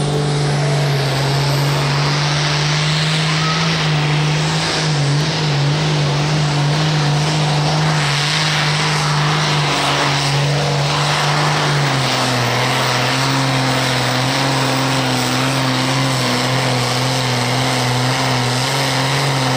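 International Harvester pulling tractor's diesel engine running flat out under full load as it drags a weight-transfer sled, a loud steady drone. Its pitch drops a little about twelve seconds in.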